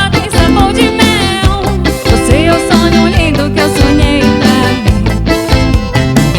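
Live band playing an upbeat melody (Pará brega-style) song, an instrumental stretch with guitar over a steady beat.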